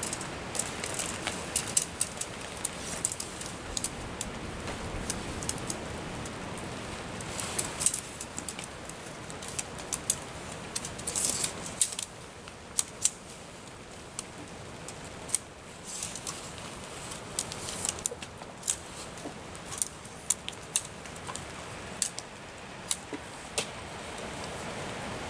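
Irregular sharp metallic clicks and rattles of tent pole sections being handled and fitted together, over a steady hiss of rain.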